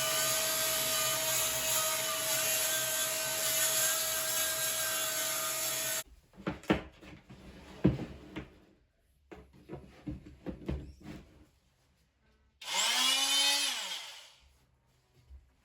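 220-watt oscillating multi-tool running and cutting with a steady whine for about six seconds, then stopping. A few knocks and clicks follow, and near the end the tool runs briefly again, its pitch rising and then falling as it spins up and winds down.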